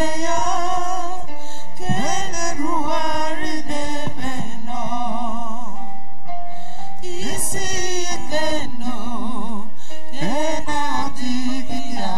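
Church worship song through a PA: a lead singer's voice, with a wavering vibrato, over steady instrumental backing.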